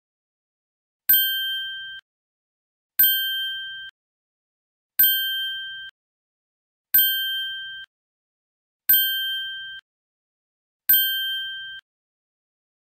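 A ding sound effect repeating six times, about every two seconds. Each ding is two clear tones with a bright click at the start, and it rings for under a second before cutting off sharply.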